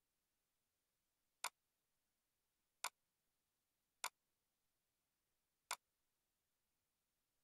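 Four sharp computer mouse clicks, spaced about one to one and a half seconds apart, over near silence.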